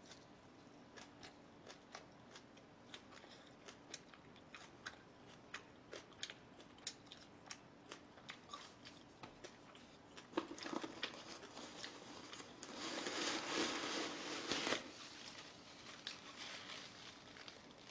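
Close-up eating sounds: a string of small clicks and smacks from chewing, then a louder stretch of crunching for about four seconds past the middle.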